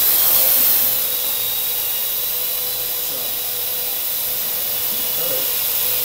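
Parrot AR.Drone quadricopter's four electric motors and propellers whirring as it lifts off, loudest in the first second, then settling to a steady whir with a high hiss as it hovers.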